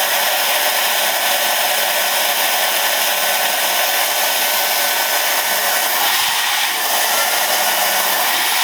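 iCLEBO O5 robot vacuum's suction fan motor running at speed: a loud, steady rush of air with a constant high whine. The rotor holds steady under load, without wobble.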